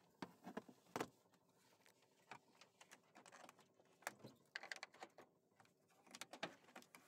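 A car door being eased open slowly: a few faint clicks and knocks, the loudest about a second in, then scattered clusters of small clicks.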